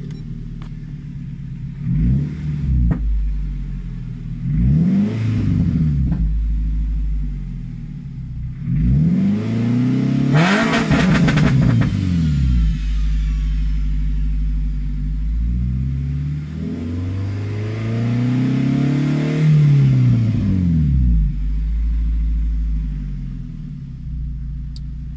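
Nissan Sentra SE-R Spec V's QR25 2.5-litre four-cylinder, breathing through a freshly installed 2JRacing Medusa header, idling and being revved: two pairs of quick throttle blips, then a longer rev held around 3,000 rpm, then a slower rise and fall before it settles back to a steady idle near 1,000 rpm.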